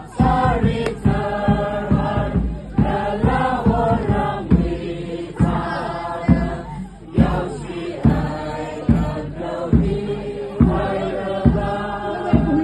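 A group of voices chanting together over a steady low beat about twice a second.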